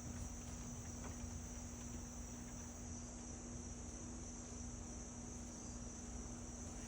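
A steady, continuous chorus of crickets in a high, even trill, with a faint low steady hum beneath it.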